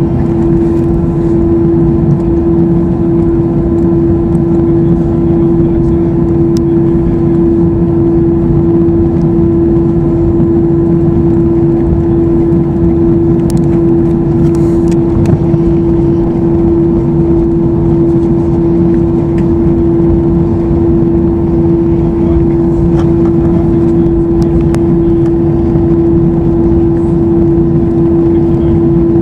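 Steady drone of the CFM56 engines and airflow heard inside the cabin of a Swiss Airbus A321-212, with a steady hum at one pitch over a rumble. A few faint clicks are scattered through.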